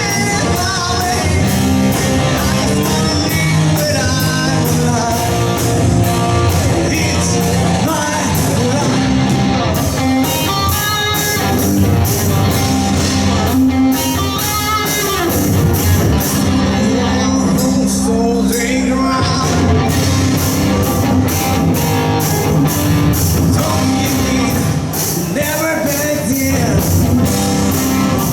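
Live rock band playing a cover: electric guitar, bass guitar and drum kit keeping a steady beat, with a male singer.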